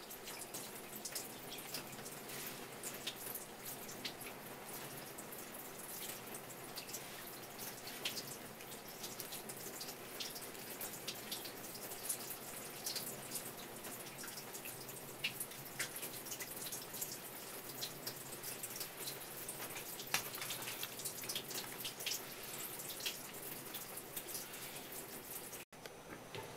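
Small irregular wet clicks and cloth rustling as sardine fillets are wiped and patted dry in a terry towel, over a faint steady hum.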